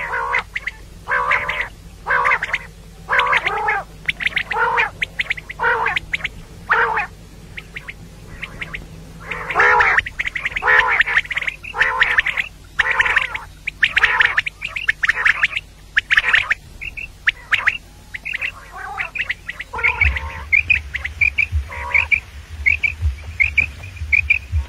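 Caged quails calling over and over: a string of harsh, squawking calls about one a second, packed closer together in the middle, then in the last third a run of short high chirps about two a second.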